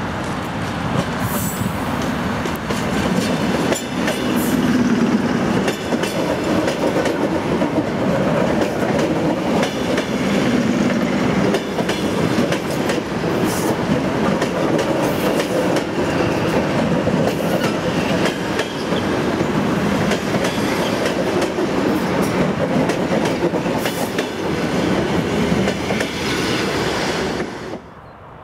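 ET2M electric multiple unit running past close by, its wheels clicking over the rail joints with a steady rumble. The sound cuts off suddenly near the end.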